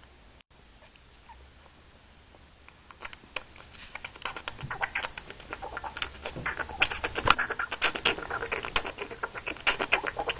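Handling noise: a rapid, irregular patter of light clicks and rustles that starts about three seconds in and grows busier and louder.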